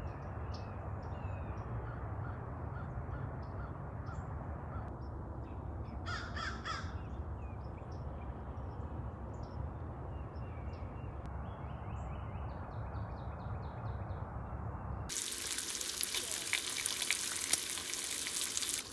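Outdoor ambience: birds calling over a steady low rumble, with a harsh, cawing call about six seconds in. About fifteen seconds in, this gives way suddenly to bacon sizzling in a frying pan.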